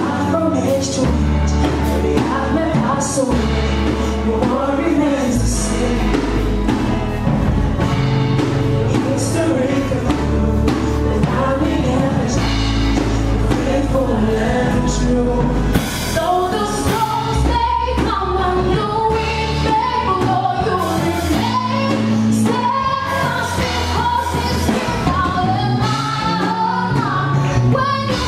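A worship song: voices singing over a band with bass and drums.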